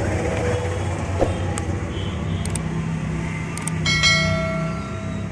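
RO booster pump running with a steady low hum and no grinding, its upper head bearing freshly replaced with a new 6203 bearing, which has cured its noise. A single click about a second in, and a brief ringing of several high tones for about a second near the four-second mark.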